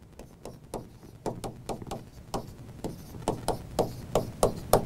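Pen tip tapping and clicking against the glass of an interactive touchscreen whiteboard as letters are written by hand: a string of sharp, irregular taps, about three a second, the loudest near the end.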